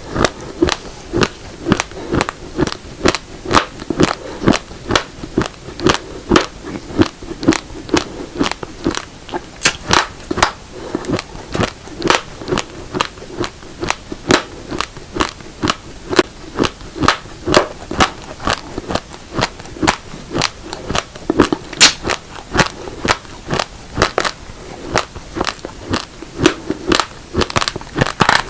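Close-up chewing of uncooked black and red rice grains: hard, sharp crunches at about two a second, with no break.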